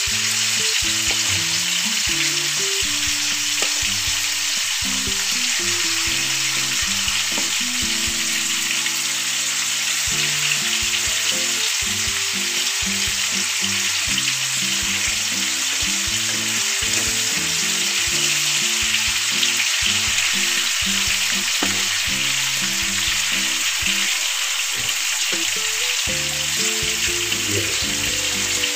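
Marinated chicken pieces sizzling steadily in hot oil in a nonstick pan on high heat, with a spatula and fork stirring and turning them. The pieces are being shallow-fried to colour them.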